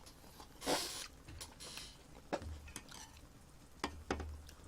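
Eating utensils clicking against a dish a few times, with a short soft rustle near the start.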